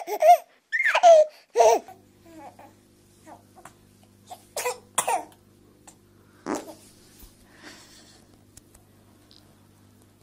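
A baby squealing and laughing in loud, pitched bursts during the first two seconds, then a few short sudden noises over a faint steady electrical hum.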